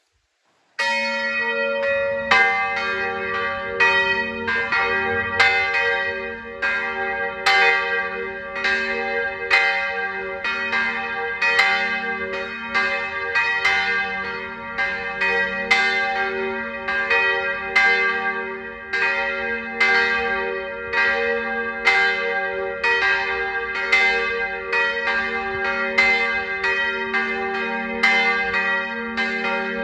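Church bells in an open belfry ringing for a service. The bells start suddenly about a second in, then strike again and again in an uneven, overlapping rhythm of about two strokes a second, with their tones ringing on under each new stroke.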